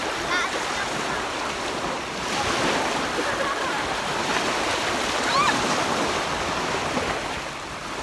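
Small sea waves breaking and washing up on the shore, a steady surf noise.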